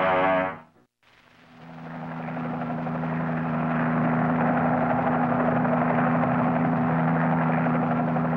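Cartoon helicopter sound effect: a steady droning hum that fades in about a second in after a brief silence and then holds level.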